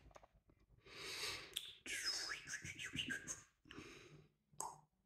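A man's quiet breathing and soft whispered muttering in several short breaths, with a couple of faint ticks.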